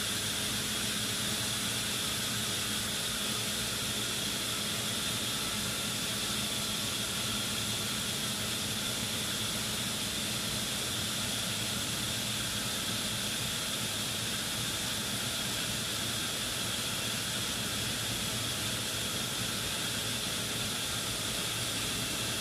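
Steady machinery noise: an even hiss with a low hum and a high whine running through it, unchanging throughout.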